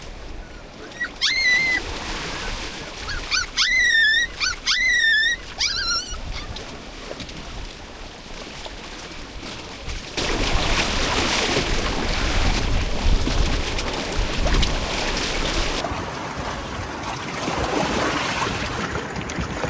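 A dog whining in several short, high-pitched whimpers over the first few seconds. About ten seconds in, a louder, steady rush of waves and rain takes over.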